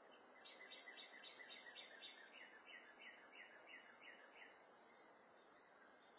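A songbird singing faintly: a run of quick, repeated down-slurred whistled notes, about four a second, in two series over about four seconds, against a steady faint hiss.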